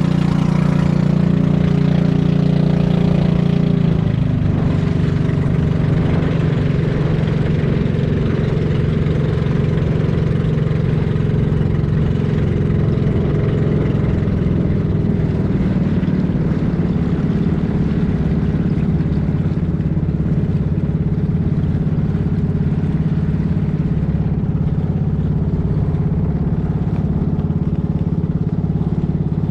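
Outrigger fishing boat's (bangka) engine running steadily under way, a constant low drone; its note shifts slightly about four seconds in.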